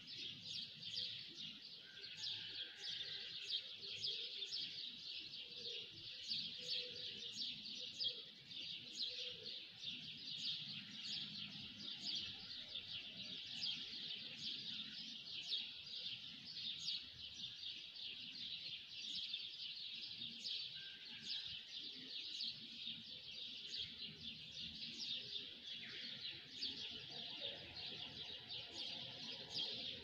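Dawn chorus of many small songbirds chirping at once: a dense, unbroken chatter of short high chirps over faint low background noise.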